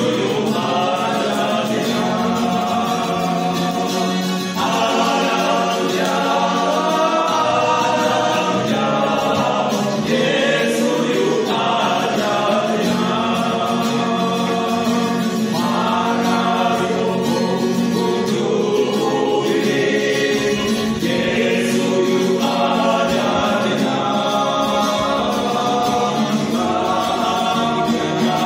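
Male choir singing a gospel song together in phrases of a few seconds, accompanied by an acoustic guitar.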